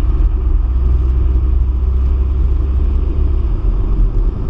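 Car on the move: a steady, loud low rumble of engine and road noise.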